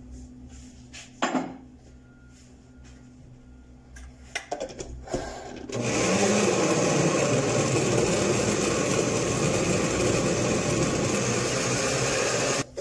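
A few knocks and clicks as the glass bowl and blender jar are handled, then an electric countertop blender runs steadily for about seven seconds, puréeing strawberries in water, and cuts off suddenly near the end.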